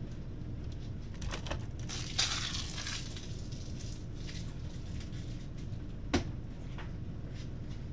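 Small off-camera handling noises over a steady low background hum: a few light clicks a little over a second in, a brief crinkling rustle around two seconds in, and one sharp click just after six seconds.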